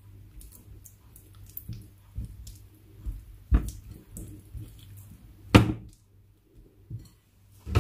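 Kitchen handling noises while cream cheese is got ready for beating: scattered light taps and clicks, with two louder knocks about three and a half and five and a half seconds in.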